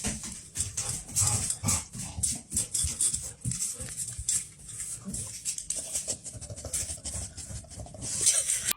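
A dog making irregular, noisy sounds, with no clear barks.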